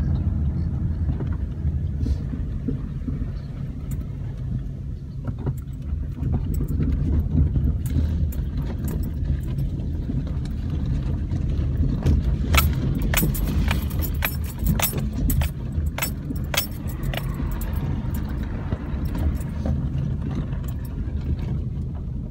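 Car driving along a road, heard from inside the cabin as a steady low road and engine rumble. For a few seconds midway, a run of sharp light clicks and jingles rides over it.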